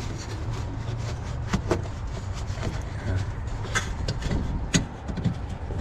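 Scattered plastic clicks and taps from hands working a headlight bulb's wiring connector back into place, over a steady low rumble.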